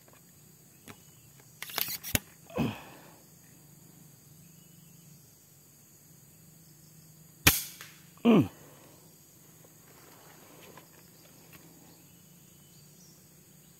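PCP air rifle (FX Impact M3) fired twice, about five seconds apart, each a sharp crack followed within a second by a short sound that falls in pitch.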